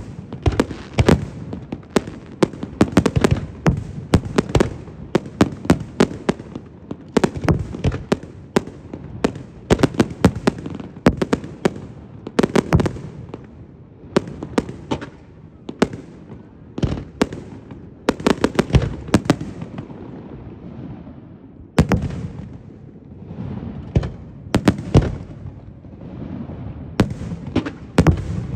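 Aerial firework shells bursting in rapid succession, often several bangs a second, with crackling in between. The bangs ease off briefly about twenty seconds in, then resume with a loud bang.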